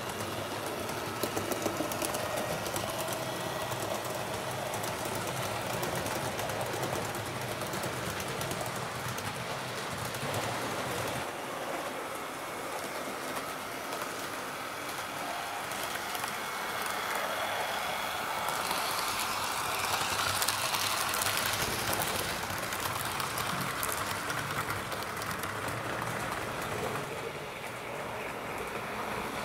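Roco HO-scale model NS 1100 electric locomotive pulling passenger coaches along the track: a steady running noise from its small electric motor and wheels, with fine clicking over the rails, growing louder around twenty seconds in.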